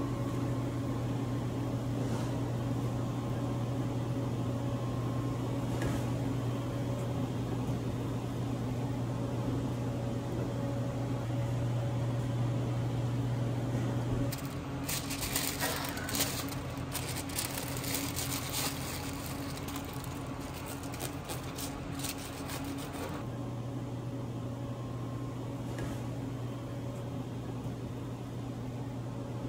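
Steady low electrical hum of kitchen machinery such as refrigeration or a fan, louder in the first half. From about halfway in, roughly eight seconds of rapid clicks and rustling sit over it.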